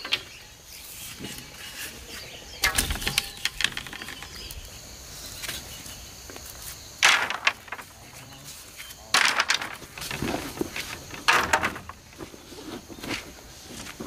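Dry bamboo poles clattering against each other as they are tossed onto a pile on bare soil, in four short bursts a few seconds apart.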